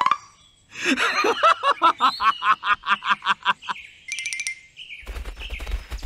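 A cartoon laughing sound effect: a rapid run of pitched 'ha-ha-ha' pulses lasting about three seconds. It is followed by a short high squeak, and about five seconds in, background music with a steady low beat starts.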